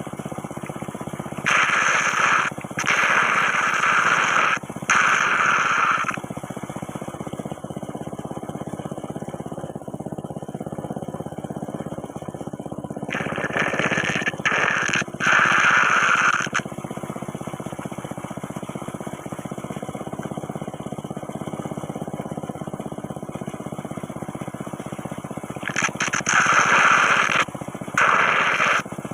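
Whirlpool sucking air down with a loud slurping gurgle, like coffee being slurped. It comes in three spells of a few seconds each, each broken into short gulps, over a steady low rush.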